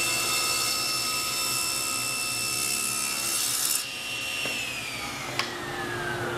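SawStop table saw with a 40-tooth Whiteside Plus carbide blade ripping thick 8/4 walnut, running at a steady whine with the cutting noise on top. The cutting noise stops about four seconds in as the board clears the blade, then the saw is switched off and its whine falls in pitch as the blade coasts down, with a single click partway through.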